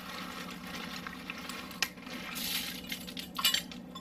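Frozen baby lima beans rattling as they are poured into a measuring cup, in two short bursts in the second half, with a sharp click just before the middle.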